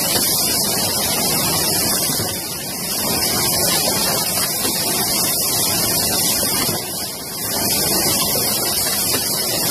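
Automatic rotary yogurt cup filling and sealing machine running, heard as a steady hiss-like noise that dips briefly twice.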